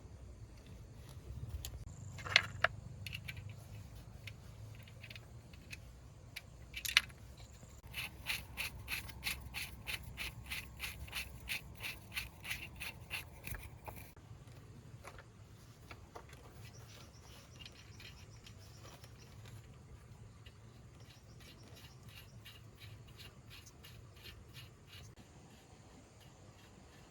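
Hand-tool work on metal: two sharp knocks, then a run of quick, even clicks at about four a second, then fainter clicking and scraping.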